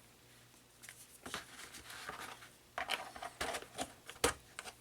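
Paper leaflets and small cardboard packaging being handled: irregular rustling with scattered light clicks and taps, one sharper tap near the end.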